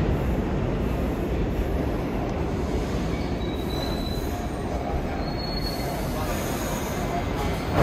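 New York City subway train running along the track with a steady rumble, with two short faint wheel squeals about three and a half and five seconds in.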